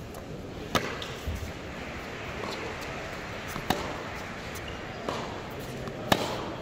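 Tennis ball struck hard by a racquet in a baseline rally: three loud, crisp hits (about a second in, mid-way, and the loudest near the end), with softer knocks of ball bounces and the far player's shots between them. Background chatter from onlookers runs underneath.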